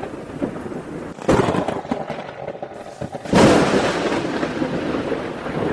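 Thunder sound effect: two sudden cracks of thunder, one just over a second in and a louder one about three seconds in, each trailing off into a long rumble.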